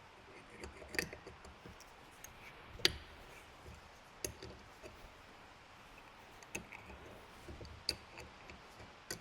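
Scattered light clicks and taps of small metal parts being handled, irregular and faint, with the sharpest tap about three seconds in.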